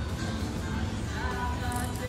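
Background music with a steady bass line and melody.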